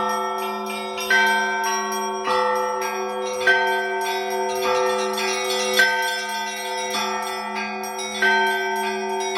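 Russian Orthodox church bells rung by hand in a repeating pattern: a low bell hums under quick strikes of smaller, higher bells. Four loud accented strokes come at even intervals of about two and a half seconds.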